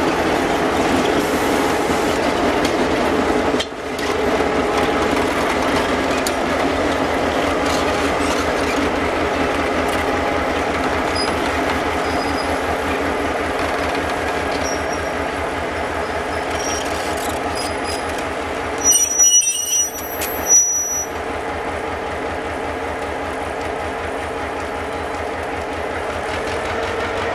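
A pair of Irish Rail 121 Class diesel-electric locomotives, each with an EMD two-stroke diesel engine, running steadily as they haul a sugar beet train slowly past, with wheel and wagon noise. A few short, high squeals come about two-thirds of the way through.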